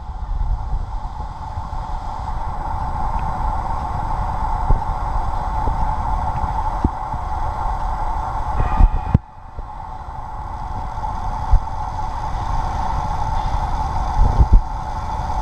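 A steady machine hum over a low rumble, with a few sharp clicks. It drops out suddenly for a moment about nine seconds in, then resumes.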